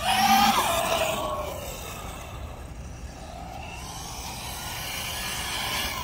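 Electric RC monster truck's motor whining as it drives across the court, the pitch falling over the first second or two as it slows, then rising again near the end as it speeds up, with tyre noise on the hard surface throughout.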